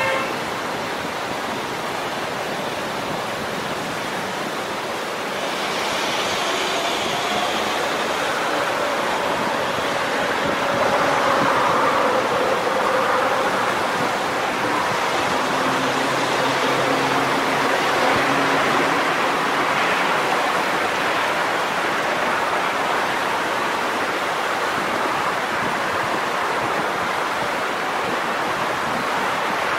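Steady rushing of Haslam Creek's water below, mixed with traffic on the road and highway. The traffic noise swells a few times, with a heavy vehicle's engine hum in the middle.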